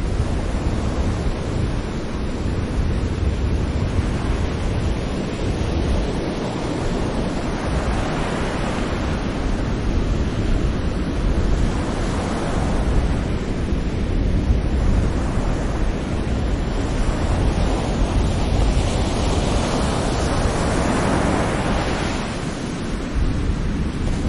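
Sea waves breaking on a shore: a continuous low rumble of surf, with the hiss of the wash swelling up three times as waves break.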